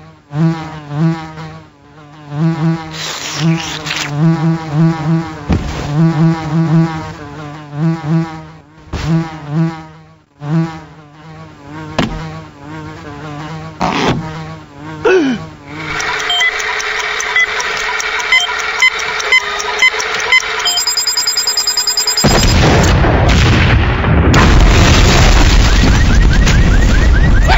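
Cartoon insect buzzing, a wavering, stuttering buzz from a bug caught in a spider's web. Later it gives way to a steady drone with faint regular ticks, then a loud, even rushing noise.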